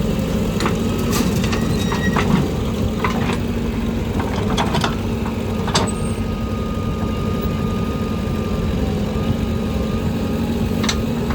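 Heavy diesel earthmoving machinery running steadily under load, with scattered short knocks and clanks throughout.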